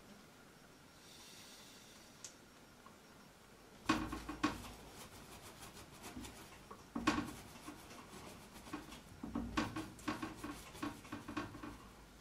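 Paintbrush rubbing and dabbing on a stretched canvas: quiet at first, then three bursts of scratchy strokes and taps about four, seven and nine seconds in.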